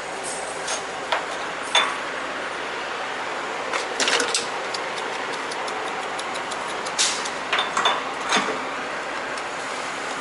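Steady noise of a truck-stop diesel fuel island during fuelling. A handful of sharp clicks and knocks are scattered through it, with a cluster about four seconds in and another around seven to eight seconds.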